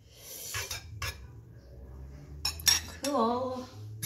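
Egg whites poured from a glass bowl into a frying pan, followed by a few sharp clinks and knocks of the bowl and utensils against the pan and counter.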